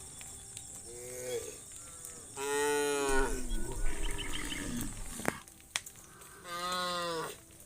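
Cows mooing: a short call about a second in, a long loud moo lasting over a second, and another moo near the end. A couple of sharp clicks fall between the moos.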